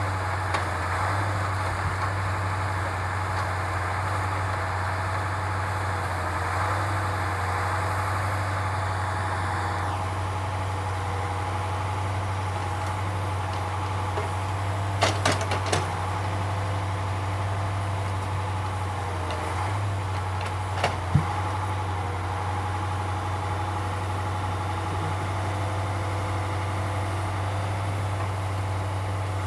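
Engine and hydraulic pump of a timber truck's OMTL 70-02 hydraulic loader crane running steadily, with a whine that dips in pitch a couple of times as the crane works. A few sharp knocks come about halfway through and again a few seconds later.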